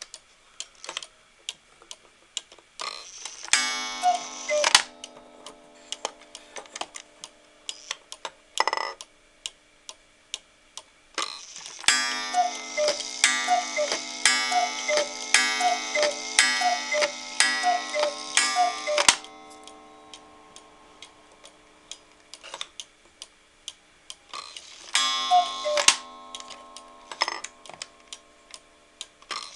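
Vintage 8-day E. Schmeckenbecher Black Forest cuckoo clock ticking and calling as its minute hand is turned forward. A single two-note cuckoo comes about four seconds in. A run of repeated cuckoo calls follows from about 12 to 19 seconds, then another single call near 25 seconds, each with a sustained ringing tone under it.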